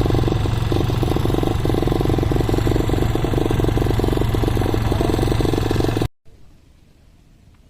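An engine runs steadily with rushing noise, as heard while riding. It cuts off abruptly about six seconds in, leaving a faint background.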